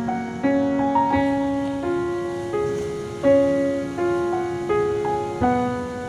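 Slow background piano music: single notes and chords struck about every three-quarters of a second, each ringing on and fading.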